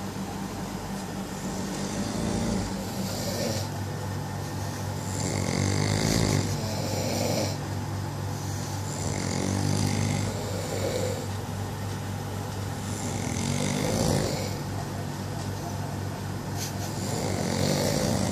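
A person snoring, one long snore about every four seconds, over a steady low hum.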